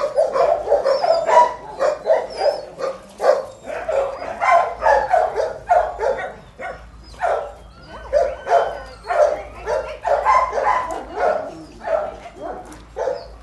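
Several dogs barking in a steady stream of short, overlapping barks, several a second.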